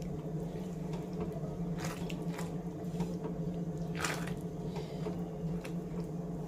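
Pink silicone spatula stirring thick curry gravy in a nonstick pan: wet squelching stirs, with a few louder strokes about two and four seconds in, over a steady low hum.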